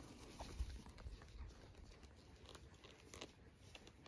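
Faint rustling and a few soft bumps from a puppy and a cat play-wrestling on grass, with a hand ruffling the puppy's fur near the end. Otherwise near silence.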